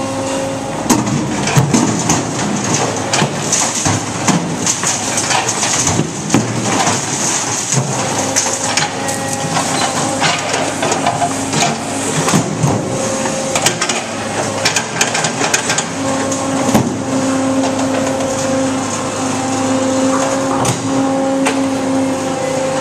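Brokk 180 demolition robot working its grapple. Its hydraulic drive hums steadily, coming and going as the arm moves, over repeated knocks and clatter of rubble chunks being picked up and dropped into bins.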